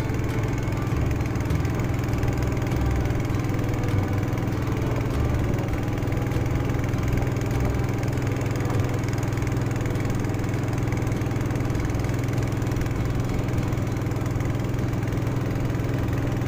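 Small fishing boat's engine running at a steady speed as the boat travels, an even, unchanging drone.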